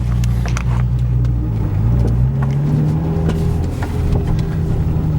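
Car engine running steadily while driving, heard from inside the cabin; its pitch rises about two seconds in as the car accelerates, then holds.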